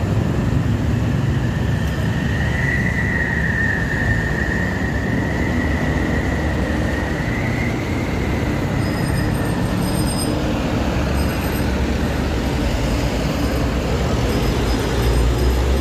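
Coach buses and trucks passing close in slow convoy traffic, a steady heavy rumble of engines and tyres. A high-pitched squeal starts about a second in and holds for about eight seconds, rising slightly and falling back.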